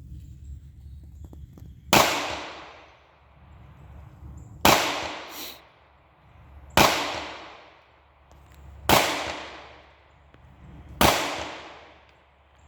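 Five shots from a Glock 9mm semi-automatic pistol, fired slowly about two seconds apart, each sharp crack followed by a fading echo.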